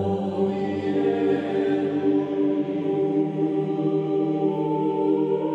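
Slow background music of choir-like chanting on long, steady held notes.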